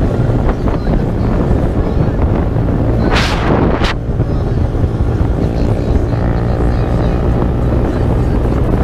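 A 125cc single-cylinder minibike engine running steadily at riding speed, with wind buffeting the microphone. A short rush of hiss comes a little after three seconds in.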